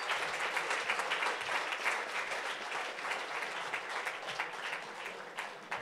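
Seated audience applauding, a dense patter of many hands clapping that gradually dies away toward the end.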